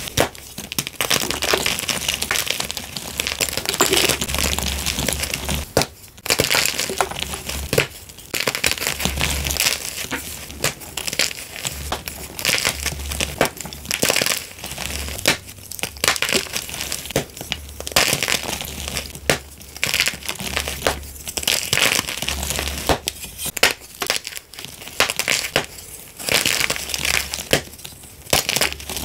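Blocks of gym chalk snapped and crushed between bare hands: dense crunching and crumbling with many sharp cracks as pieces break, in short stretches that cut off abruptly and start again.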